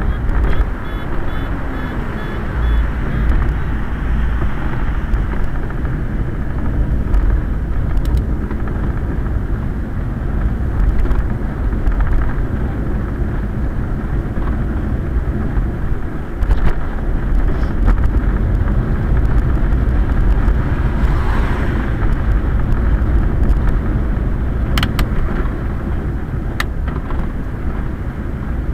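Steady rolling noise inside a Quest velomobile's enclosed shell, riding on a wet road in the rain, with a deep rumble. A few sharp ticks stand out, two of them near the end.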